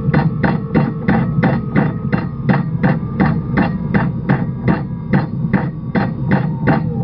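The sailing barge's slow-running engine knocking steadily, about three beats a second, over a low rumble, with the knocking cutting off abruptly at the end.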